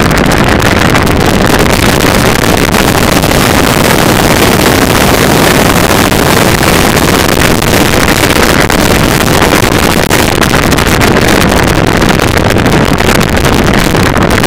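Loud, steady wind rush over the microphone of a camera on a moving motorcycle, mixed with the drone of the motorcycle's engine.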